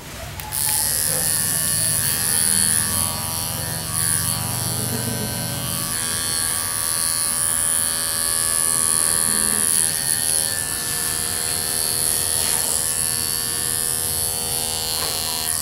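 Cordless electric pet clipper switched on about half a second in, then buzzing steadily as it shaves a long-haired cat's belly fur.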